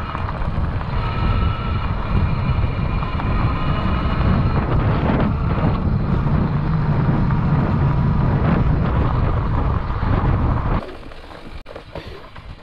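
Bikonit MD750 fat-tyre electric bike riding along a gravel road, heard from a handlebar-mounted camera: a loud, steady rumble of wind buffeting the microphone and tyres rolling over gravel, with a faint steady whine in the first few seconds. About eleven seconds in it cuts off to much quieter outdoor sound.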